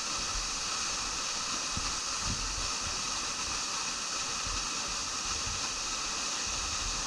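Steady rush of a waterfall pouring into its plunge pool, an even, unbroken roar of falling water.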